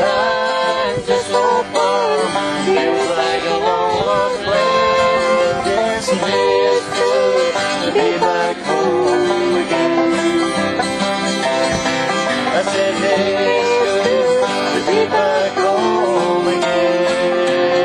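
Twelve-string acoustic guitar strummed steadily, with a man singing along.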